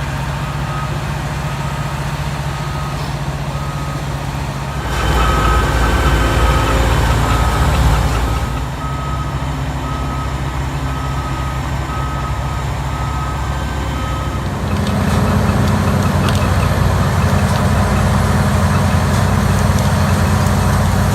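Heavy machine's engine running steadily under load, with a reversing alarm beeping over it until about 14 s in. The engine works harder for a few seconds around 5 s in, and its sound changes about 15 s in.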